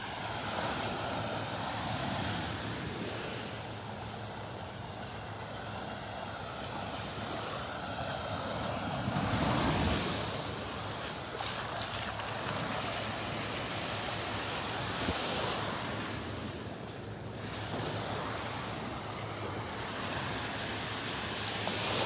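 Small Gulf of Mexico waves washing onto a sandy beach, a steady surf hiss that swells as a wave comes in about halfway through, with wind blowing on the microphone.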